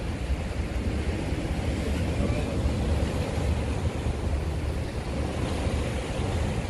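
Sea waves washing and breaking against the concrete blocks of a breakwater, a steady rushing surf, with wind rumbling low on the microphone.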